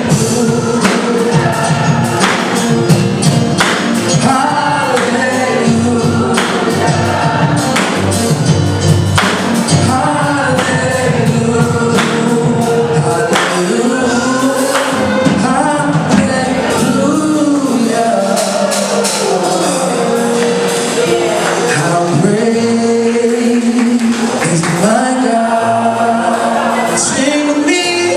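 Gospel choir singing with instrumental accompaniment and a steady beat, tambourine-like strikes on the beat.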